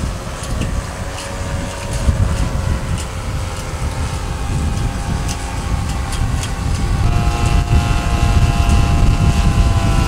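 Wind buffeting the microphone, with the steady drone of a distant motor underneath. The drone's pitch shifts about seven seconds in.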